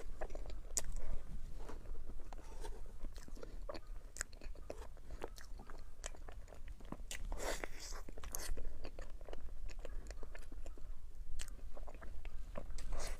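A person biting into and chewing chocolate desserts: a continual run of crisp, crunching clicks, with a louder cluster of bites a little past halfway through.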